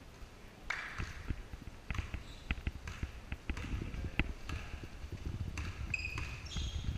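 Basketball bouncing on a hardwood gym floor amid players' running footsteps, a busy scatter of thuds and knocks, with a few short high squeaks near the end.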